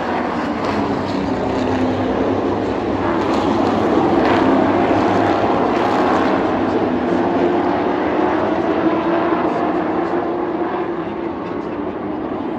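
A pack of short-track racing trucks running at speed, several engines at once, the sound building to a peak about four seconds in and easing off toward the end as the field passes by.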